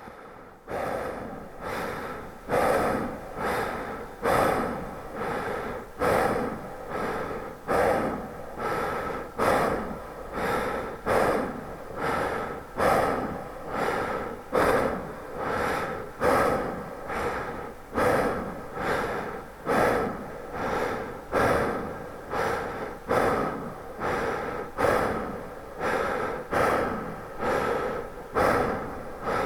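A man breathing in and out steadily and fairly fast. There is one louder and one softer breath in each cycle, and a full cycle comes about every second and a half to two seconds. Each breath is drawn out by a big artificial reverb.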